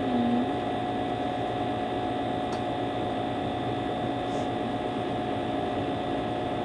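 Steady electrical hum with a few constant tones over an even background noise, like an appliance running in a small room.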